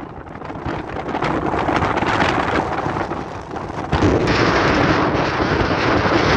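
Storm wind gusting against the microphone in a snowstorm, a loud buffeting rush. It eases briefly at the start, builds again, and a stronger gust hits about four seconds in.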